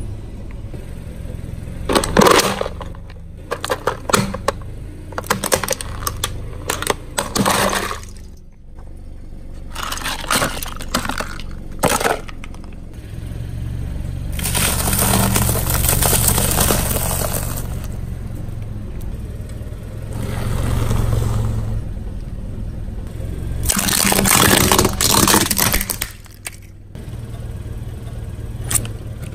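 A car tyre rolling over and crushing crunchy food: a quick run of sharp cracks and crunches in the first half, then longer stretches of grinding crunch, over the steady low hum of the car's engine.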